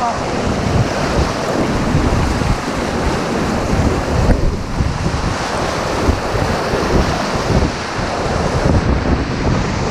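Whitewater rapids rushing and splashing around a raft, a steady loud rush with wind buffeting the microphone.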